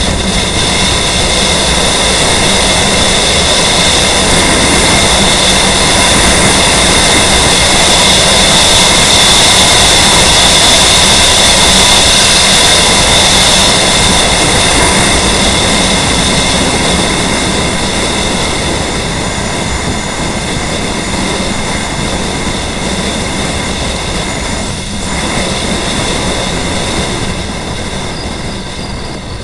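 Steady loud rush of wind and road noise from a motorcycle riding at highway speed, with a steady high whine running through it. Loudest around ten seconds in, easing off near the end.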